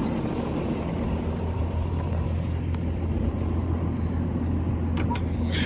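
Tractor engine running steadily, a low rumble, with a couple of light clicks about five seconds in.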